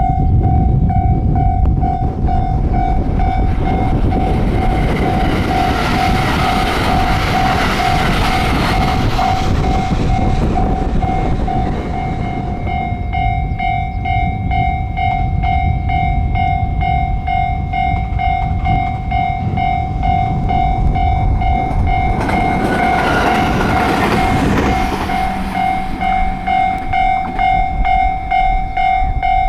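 Japanese level-crossing warning bell ringing steadily in quick repeated dings while a train passes with a rush of rail and wheel noise over a low rumble; a second rush of train noise comes about three-quarters of the way through.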